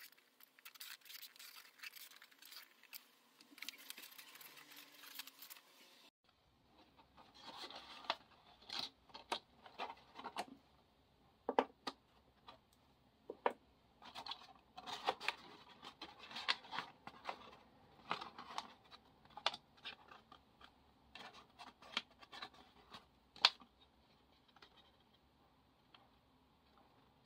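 Copy-paper model handled in the hands: faint rustling and scraping of stiff paper. After an abrupt change about six seconds in, it turns into many short crisp clicks and crinkles as the parts are pressed and turned.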